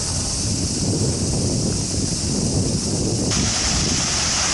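Steady high-pitched insect buzzing, with wind buffeting the microphone underneath. About three seconds in, the sound changes abruptly and the buzzing grows fuller.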